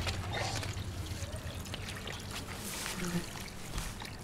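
Water from a garden hose running into a metal pan of raw mutton pieces, with hands splashing and rubbing the meat as it is washed.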